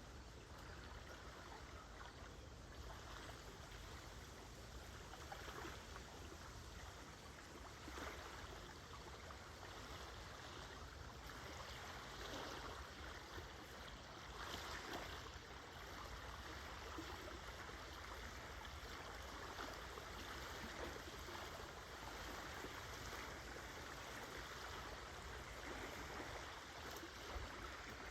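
Small waves of Lake Huron lapping gently on the shore: a faint, steady wash of water that swells a little and eases off.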